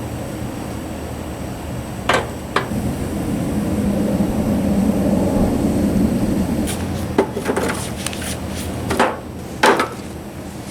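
Several sharp knocks, a pair about two seconds in and a cluster in the last few seconds, over a steady low rumble.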